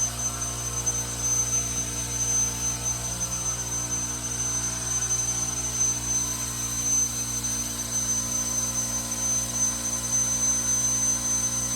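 Steady hum of running industrial machinery in a compressed-air and nitrogen-generation plant: a low drone with a constant high-pitched whine above it, unchanging throughout.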